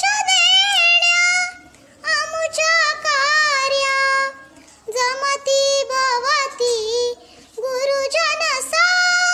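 A young girl singing a Marathi welcome song unaccompanied, in four phrases with high, ornamented notes that slide and waver, and short breaks between phrases.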